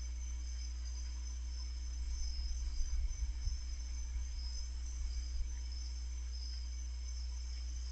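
Night insects, crickets, chirring steadily in high pitched bands over a constant low hum, with a few low bumps in the middle.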